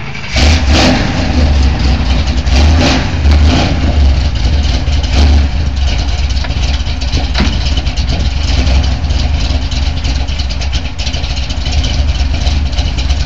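1976 Corvette Stingray's 355 small-block Chevy V8 with a roller cam, loud: revved in a few short blips over the first five seconds or so, then running steadily at idle.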